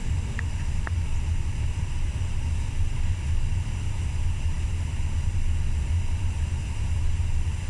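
Indoor skydiving wind tunnel running: the steady low rumble of its fans driving air up through the flight chamber, with no change in speed.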